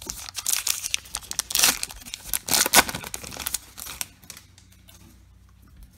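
Wrapper of a Topps Heritage baseball card pack being torn open and crinkled by hand, a run of crackling rips that stops about four seconds in.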